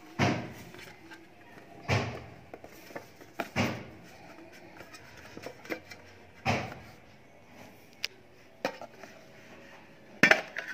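Metal watch tin being handled and worked open by hand. There are four dull knocks and scrapes about two seconds apart, then a few lighter clicks near the end.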